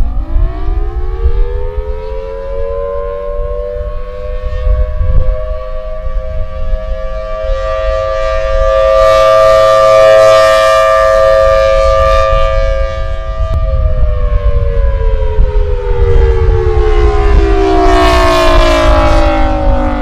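Outdoor tornado warning siren winding up over about four seconds to a steady wail of two close notes sounding together, swelling louder in the middle, then winding down from about two-thirds of the way through. A low rumble runs underneath.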